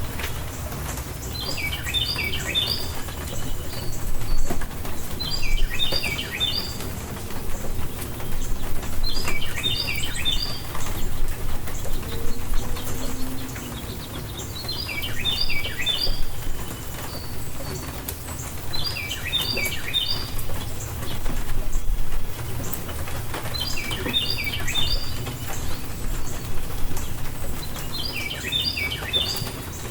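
A songbird repeats a short phrase of quick, clipped notes about every four seconds, seven times in all. Under it runs a steady rain ambience with a low rumble.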